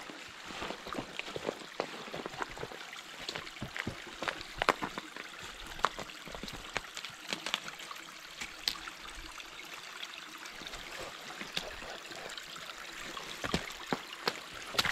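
A small shallow stream running over rocks, a steady watery hiss, with footsteps on snow and ice and short sharp taps throughout, getting louder near the end.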